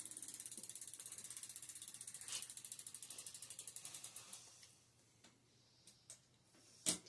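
Bicycle rear freewheel pawls clicking as the rear wheel of a 1995 Schwinn Ridge Searcher coasts after pedalling stops: a rapid, even ticking that slows and fades out about four to five seconds in. A sharp knock follows near the end.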